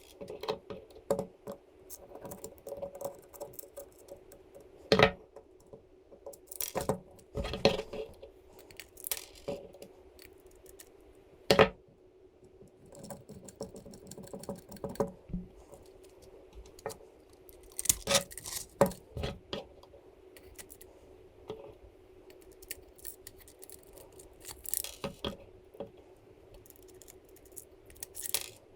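Scattered clicks, taps and light rattles of small 3D-printed plastic parts and metal screws and nuts being handled during assembly, a few sharper knocks standing out, over a steady faint hum.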